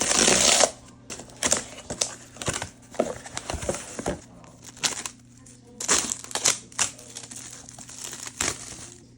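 Packaging being handled and opened: rustling and crinkling with scattered clicks and knocks, loudest in the first moment and again about six seconds in. A faint steady low hum runs underneath.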